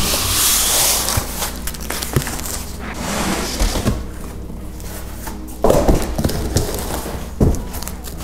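Large corrugated cardboard shipping box being lifted and slid up off a boxed scooter inside it: cardboard scraping and rubbing, with two sharp thumps in the second half as the box is handled.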